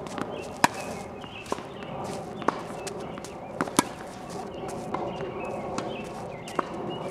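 Tennis balls struck by rackets and bouncing on a hard court during a rally: sharp pops every second or so, some close and loud, others faint from the far end, with a quick pair just before the near player's forehand.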